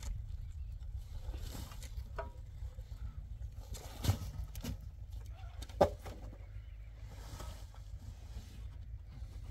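Concrete blocks and a bowlful of earth being handled: a few scattered knocks and scrapes, the sharpest about six seconds in, over a steady low rumble of wind on the microphone.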